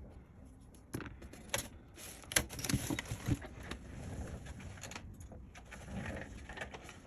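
Light clicks, taps and scraping of small repair tools against the opened MacBook Pro's internals while the battery connector is being disconnected. The clicks are separate, with the busiest stretch about three seconds in.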